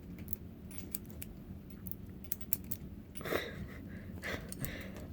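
Brinks four-digit combination padlock's number wheel being turned under tension, giving a run of small, sharp metallic clicks, with a brief louder scrape about three seconds in.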